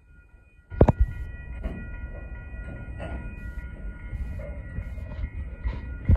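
Freight train of covered hopper cars rolling across a road level crossing: a steady low rumble of wheels on rail, with two loud clanks about a second in and at the end as wheels strike the crossing rails, while the crossing bell rings steadily.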